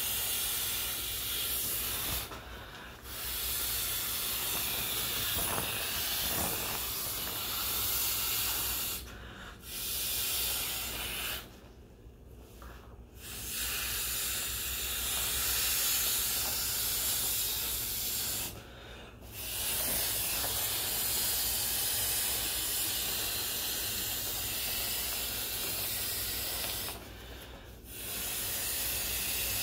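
Kiwi-slice inflatable swim ring being blown up by mouth: long hissing breaths pushed through its valve, each lasting several seconds, broken by about five short pauses to draw breath.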